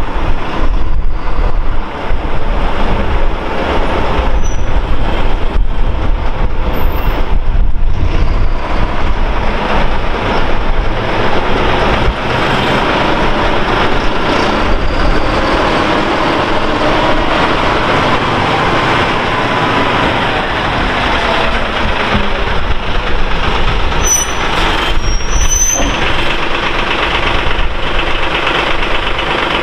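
Fire department aerial ladder truck's diesel engine running as it pulls out and drives slowly past close by, with a few brief high squeaks near the end.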